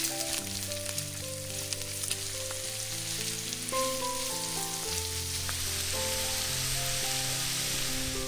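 Sizzling and crackling, like food frying in a hot pan, over background music with held notes; the sizzle stops near the end.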